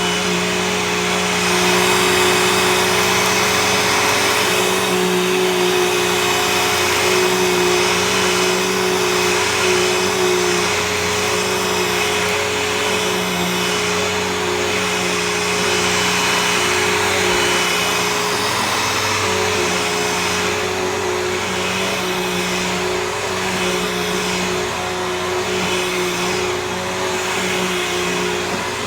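Bissell CleanView Helix Select upright vacuum cleaner running steadily, a motor hum with a high whine over the rush of suction air.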